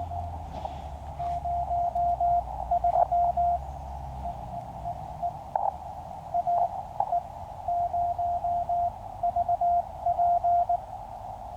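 Morse code (CW) signal from a QCX mini QRP transceiver's receiver: one steady pitch keyed in dits and dahs, likely a calling station sending its callsign, over a narrow band of receiver hiss, with a few sharp crackles. A low rumble fades out about four and a half seconds in.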